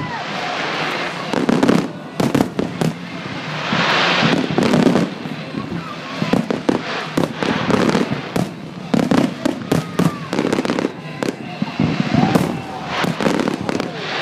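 Aerial fireworks bursting in a dense, irregular string of bangs, with a stretch of hissing crackle about four seconds in.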